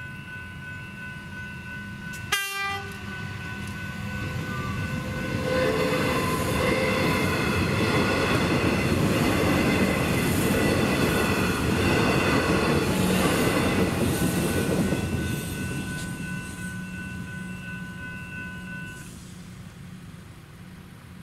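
Level-crossing electronic bells ring steadily as a Metro electric suburban train passes over the crossing. The train swells to a loud, noisy pass-by for about ten seconds and then fades. A short sharp blip comes about two seconds in, and the bells stop near the end as the boom gates lift.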